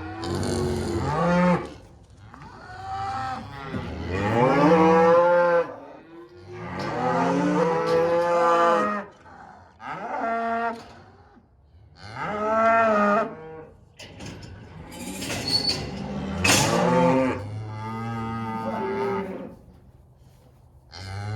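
Cattle mooing repeatedly: about seven long calls, one after another, each lasting one to two seconds and rising and falling in pitch.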